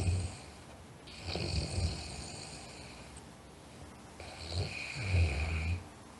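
A sleeper snoring: the end of one snore at the very start, then two more low rumbling snores, about a second in and from about four seconds in, the last the longest and loudest.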